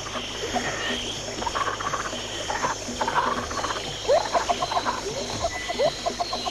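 Cat chewing a piece of turkey, a quick irregular run of wet smacking and clicking mouth sounds that gets louder in the second half.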